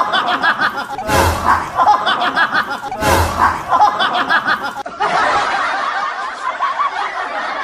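Many people laughing and chuckling together, with a louder burst of laughter that recurs about every two seconds in the first half.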